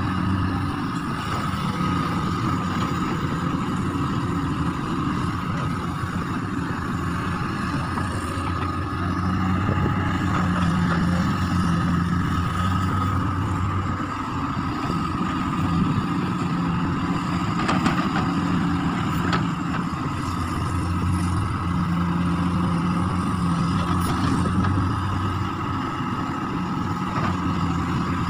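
Hydraulic crawler excavator's diesel engine running under load while digging, its note swelling and easing every few seconds, with a steady high whine over it. A few sharp knocks stand out about two-thirds of the way in.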